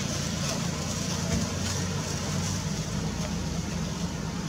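Steady low mechanical hum under an even hiss of background noise.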